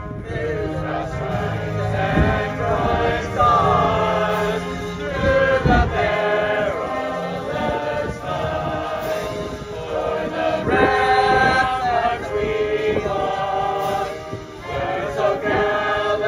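A choir singing in parts, with long held notes.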